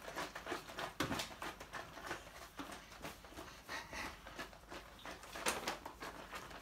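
Betty Winters shake-to-bake plastic pancake mix bottle, filled with milk and powder, being shaken hard by hand: liquid sloshing inside in quick repeated strokes as the batter mixes.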